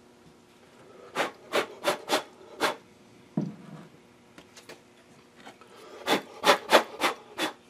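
Wooden sand-casting flask being knocked and handled, sand grating against wood: two runs of about five quick gritty raps, with a dull thump between them.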